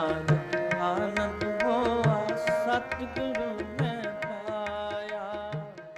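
Sikh devotional kirtan music: tabla strokes keep a steady beat under a held drone and a bending melodic line. It fades out near the end.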